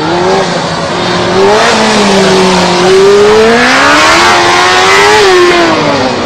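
Superbike engine running hard, its note sagging, then climbing to a peak about five seconds in and falling away near the end as the revs drop and rise.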